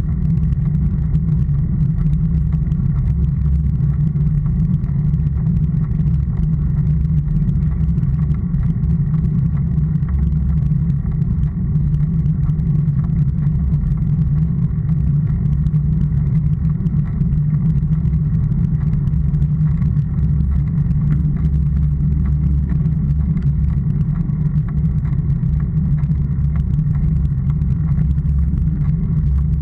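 Wind and road noise on a camera mounted on a moving road bike: a steady, muffled low rumble with almost nothing in the higher range.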